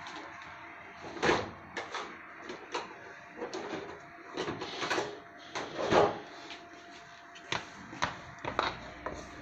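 Irregular knocks, clicks and clatter of kitchen things being handled while a plastic dough scraper is fetched and brought to the dough on the countertop. The loudest knocks come about a second in and about six seconds in.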